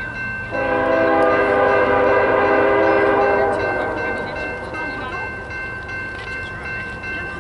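Diesel freight locomotive's air horn sounding one long blast of several notes at once, lasting about three seconds from about half a second in, then fading: the train whistling for the grade crossing it is approaching.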